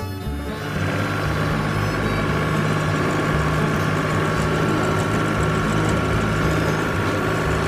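A heavy vehicle engine idling steadily with a low, even hum: the engine sound of a cartoon excavator or dump truck. The sound dips briefly at the very start.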